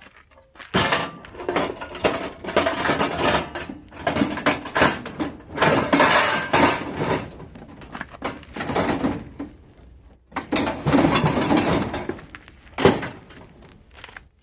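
Scrap metal being handled, rattling and clattering in several long stretches, with one sharp knock near the end.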